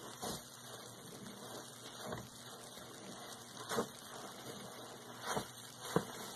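A sponge soaked in thick pine-cleaner suds squeezed by a gloved hand: five wet squelches, the last and loudest near the end, over a steady crackling fizz of foam.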